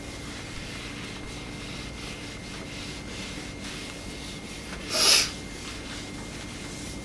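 A cloth rubbed by hand across a glass-ceramic cooktop, with faint wiping strokes. About five seconds in comes a short, loud hiss.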